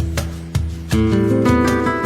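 Background music: acoustic guitar playing plucked notes and strums, in a flamenco-like style, thickening into a busier run of notes about a second in.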